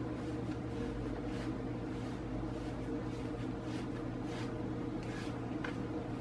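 Hands pressing and rubbing crumbly cornstarch-and-butter alfajor dough against a granite countertop: soft, irregular brushing strokes, over a steady low hum.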